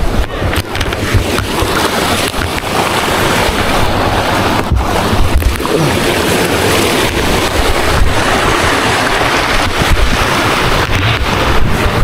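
Wind buffeting the microphone: loud, gusty noise with a heavy low rumble that rises and falls, getting denser after the first couple of seconds.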